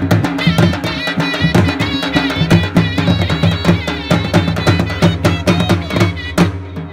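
Dhol drums, the big double-headed barrel drums of Punjabi folk music, beating a fast, steady rhythm, with a high, wavering melody playing over them.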